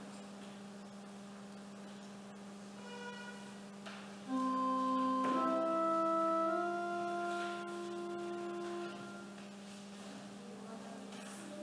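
A few held organ notes start about four seconds in, change pitch twice and stop about five seconds later, over a steady electrical hum.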